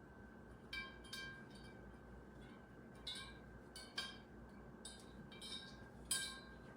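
Light metallic clinks, about eight irregular strikes, each ringing briefly with a bright chime-like tone.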